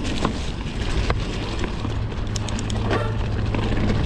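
Intense Sniper T mountain bike ridden over dirt singletrack: tyres rolling and crackling on the trail, with scattered clicks and rattles from the bike and a short run of quick ticks a little past halfway. Wind rushes over the microphone, and a low steady rumble sets in about halfway through.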